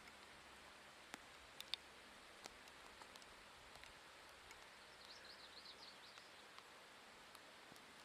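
Near silence: faint outdoor hiss with a few soft clicks, and about five seconds in a brief run of quick high chirps from a small bird.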